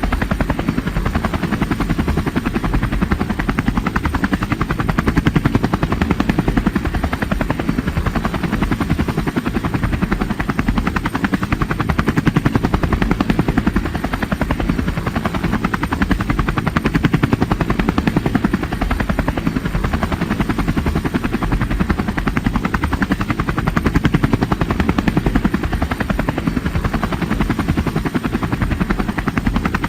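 Helicopter sound effect: a steady, rapid beat of rotor blades over an engine hum.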